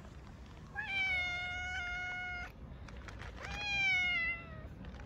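Calico cat meowing twice, asking for food. The first meow is long and level, about a second and a half. The second is shorter and falls in pitch at the end.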